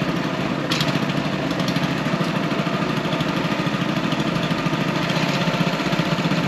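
A small engine running steadily with a fast, even beat, and a brief click about a second in.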